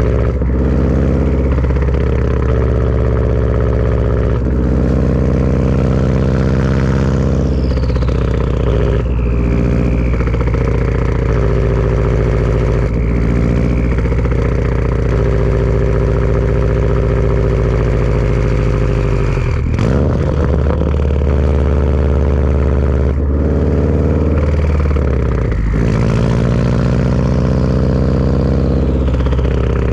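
Turbocharged Subaru flat-four engine running through a Tomei turbo-back exhaust, its note dipping and picking up again several times. Over it a high turbo whistle twice slides down in pitch.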